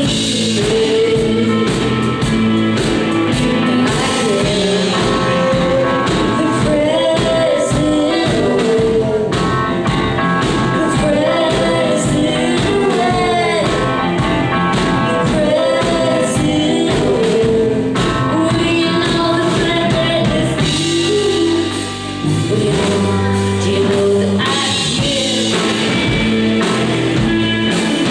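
A live band playing a song: singing over electric guitars, bass, keyboard and drums.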